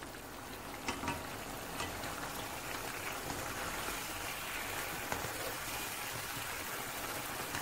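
Chicken karahi gravy sizzling steadily in the pan over high heat while a slotted plastic spatula stirs it, with a few faint taps of the spatula.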